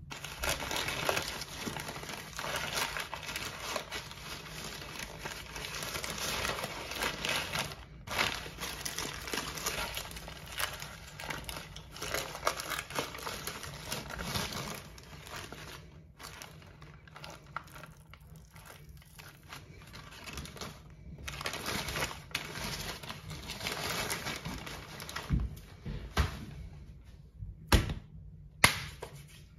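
Paper wrapping crinkling and rustling as hands unfold it and pull it off a raw steak, busiest in the first half. Two sharp thumps come near the end.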